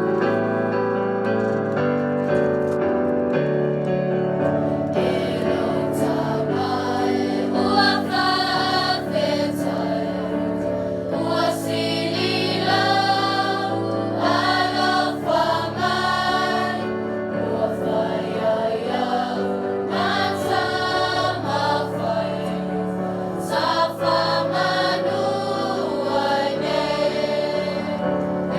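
A choir singing a hymn with keyboard accompaniment; the keyboard plays alone at first and the voices come in about five seconds in.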